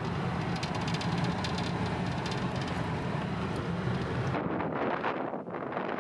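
Steady car road and engine noise, a low hum under a hiss of tyres and air. About four seconds in it cuts to gusty wind buffeting the microphone.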